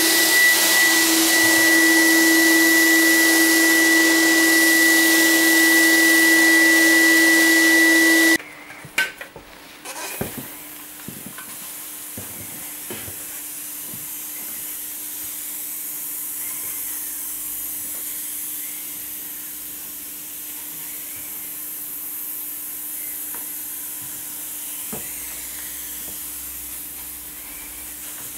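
A motorized insecticide nebulizer (fogger) runs loudly with a steady whine for about eight seconds, then cuts off abruptly. After a few knocks, a much quieter steady hiss of spray canisters follows as the rooms are fumigated against scabies mites.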